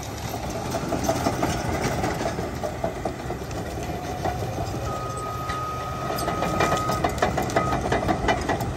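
Caterpillar D8T crawler dozer working a stump: its diesel engine runs steadily under load while the steel tracks clank and squeak. A thin high whine sounds for about two seconds midway, and a quick run of metallic clanks comes near the end.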